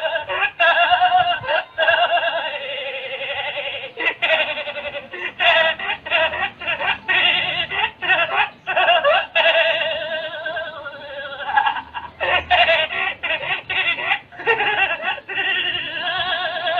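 A child laughing hard, high-pitched, in long repeated runs of laughter broken by short breaths.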